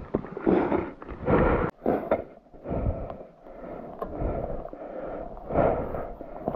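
Dirt bike engine revving in short, uneven bursts, with the loudest surges about half a second, a second and a half, and five and a half seconds in.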